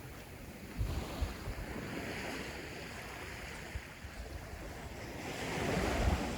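Ocean surf washing onto the beach, swelling about two seconds in and again near the end, with low wind rumble on the microphone.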